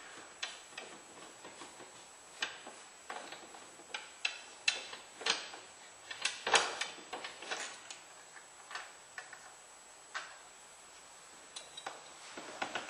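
Irregular clicks and knocks of hard parts being handled as a RocketFlap automatic trim tab's ram is taken off, with the loudest knock about six and a half seconds in.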